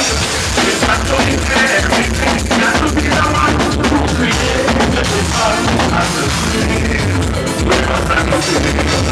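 Loud soca music with a driving drum beat and heavy bass, played over a sound system.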